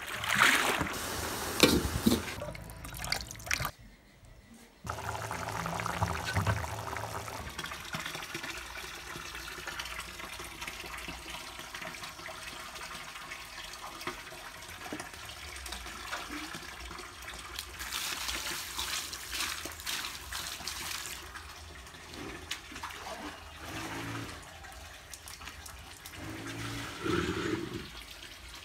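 Bunch of amaranth greens plunged and swished in a metal basin of water, splashing loudly for the first few seconds. After a short break, a steady hiss continues, with a few brief soft knocks near the end.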